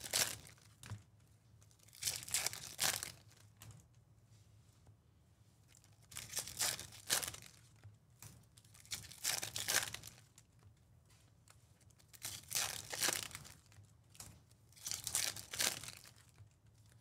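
Foil wrappers of Topps Chrome baseball card packs being torn open and crinkled in the hands, in about six separate bursts a couple of seconds apart.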